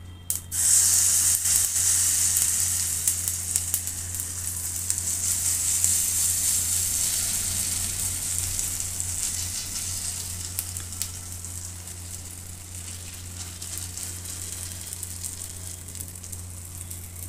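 Sweet-corn pancake batter sizzling in hot oil in a heavy-bottomed steel pan as it is poured in and spread with a steel ladle. The sizzle starts suddenly about half a second in, is loudest for the first few seconds, then slowly dies down as the batter settles.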